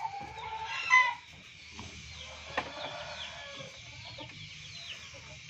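Birds peeping over and over in short, high, falling chirps, with one louder call about a second in.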